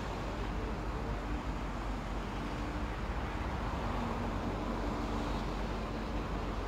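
Steady outdoor background rumble, like distant road traffic, with a faint humming tone that comes and goes.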